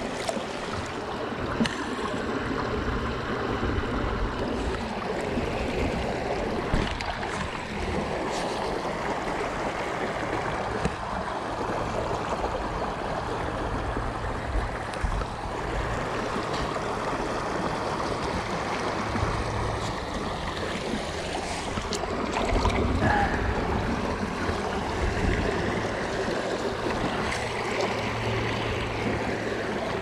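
Steady rush of creek water running over a shallow riffle, with a low wind rumble on the microphone underneath.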